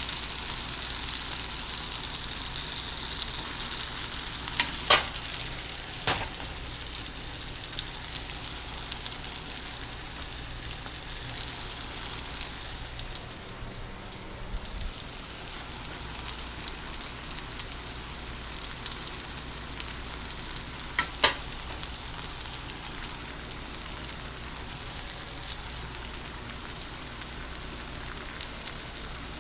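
Breaded mushroom bites deep-frying in a pot of hot oil, a steady sizzle that is strongest in the first few seconds. A few sharp clicks cut through it, twice around five to six seconds in and twice around twenty-one seconds in.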